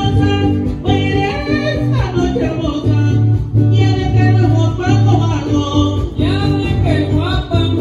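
Live mariachi band playing through a PA system: violin and strummed guitars over a deep bass line, with a voice singing.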